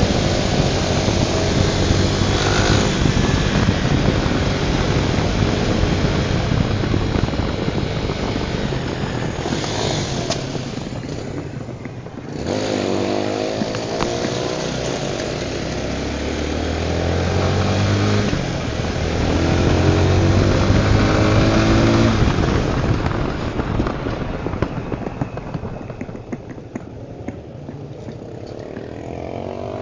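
Tornado 250 motorcycle's single-cylinder engine running on the move, with heavy wind rush on the microphone. About halfway through it accelerates twice, rising in pitch with a shift between, then eases off near the end.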